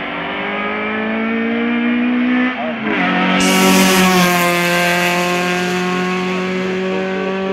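Hill-climb race car, a small hatchback, accelerating hard uphill with its engine pitch climbing, then a gear change about two and a half seconds in. It passes close about a second later and pulls away, its engine note holding steady and sinking slightly.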